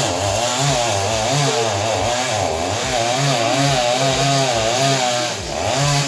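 Chainsaw cutting through a mango tree trunk, its engine pitch wavering up and down repeatedly as the chain bites and frees in the wood.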